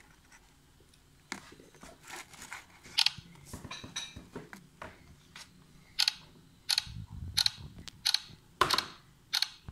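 A paper gift box and its ribbon bow being handled: a run of short, sharp crinkling clicks with soft rustling between them, coming about every 0.7 s in the second half.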